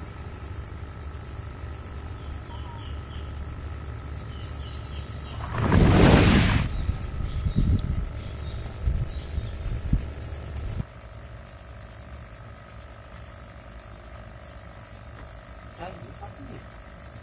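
Steady high-pitched chorus of insects, crickets or cicadas, with a brief loud rush of noise about six seconds in and a low rumble that stops about eleven seconds in.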